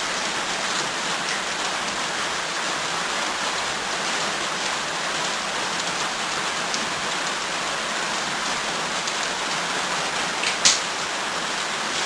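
Steady rain heard from inside a shed, with a single sharp click near the end.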